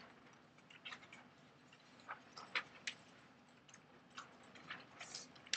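Worksheet paper being handled and swapped under a document camera: faint scattered clicks and light rustles.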